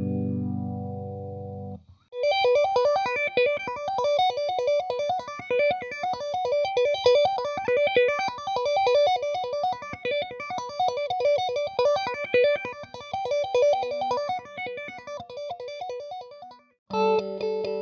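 Clean electric guitar, a Schecter Ultra III on its neck humbucker through a Vox AC15C1 amp, played through a GarageTone Oil Can phaser pedal on a slow "vowel" setting. A chord rings and stops about two seconds in. Then a fast picked repeating riff runs under a slow phaser sweep that rises and falls about every two seconds, and a new chord comes in near the end.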